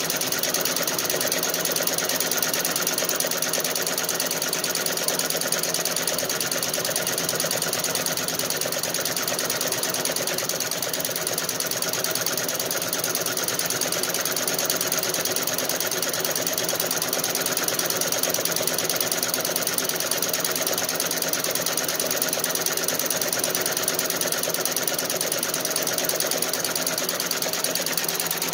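Feiyue multi-needle commercial embroidery machine stitching a design into a hooped garment: a steady, rapid, even clatter of the needle running at speed.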